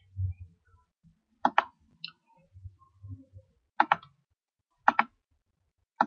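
Mouse button clicks: four quick double clicks, each a sharp press-and-release pair, spread over a few seconds, with one fainter click between the first two.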